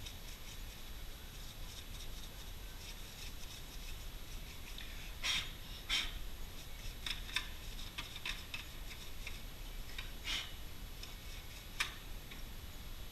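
Irregular light clicks and rubbing from hands handling computer parts, with a few sharper clicks about five, six, ten and twelve seconds in.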